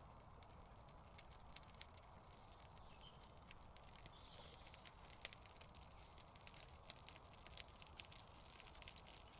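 Faint campfire crackling: irregular small sharp pops and ticks over a low steady hiss, just after the fire has been lit.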